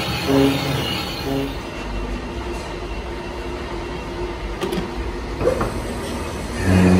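Large metal lathe running with a steady mechanical rumble, a big compressor piston turning in its four-jaw chuck, with a few light clicks about halfway through.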